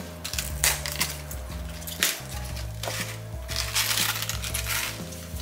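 Crisp cabbage leaves being torn and peeled off the head by hand, a series of crackling, crunchy rips, the longest about two thirds of the way through. Light background music plays underneath.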